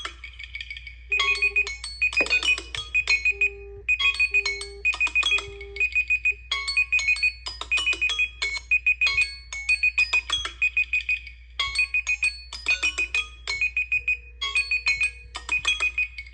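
Smartphone ringtone: an electronic melody of quick, short repeated notes with a high, rapid beeping pattern running through it, starting about a second in and repeating steadily.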